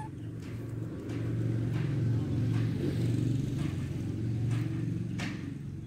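A motor vehicle's engine running, getting louder about a second in and easing off near the end, with a few faint clicks over it.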